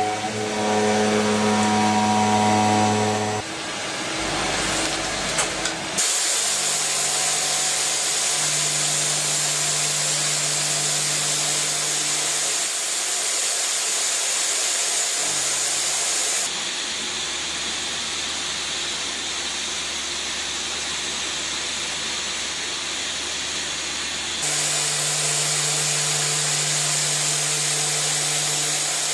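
CNC milling machines cutting metal: spindles running with steady tones under a hissy cutting noise, the sound changing abruptly a few times from one machine to another.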